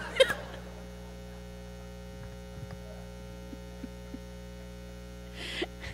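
Steady electrical mains hum from the recording system, with one brief sharp sound just after the start.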